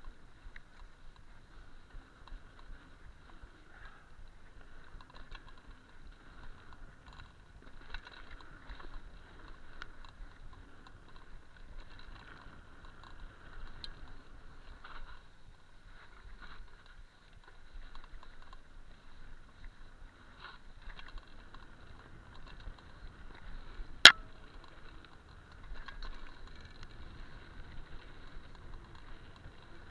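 Mountain bike riding down a dirt singletrack, heard from a camera on the rider: a steady rolling clatter of tyres, chain and frame over the rough trail. One sharp knock, much the loudest sound, comes late on.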